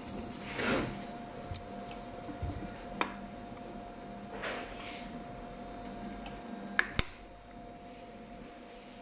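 The front-panel controls of an RB3000D glue dispenser being handled by hand: a few sharp clicks, two of them close together about seven seconds in, and a couple of soft rushing sweeps, over a steady hum.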